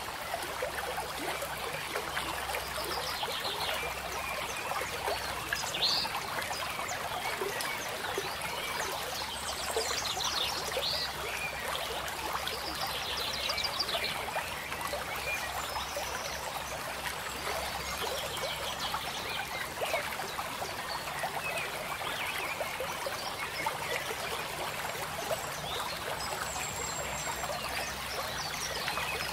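Steady rushing noise like running water, with short chirping animal calls every few seconds.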